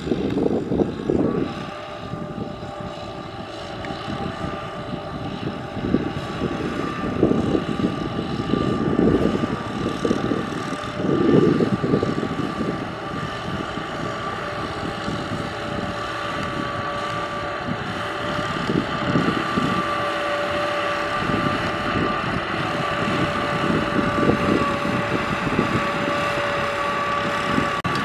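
Kubota M6040SU tractors' diesel engines running under load as they pull trailers of rice sacks through mud: a steady drone with a whine, louder in uneven surges through the first half.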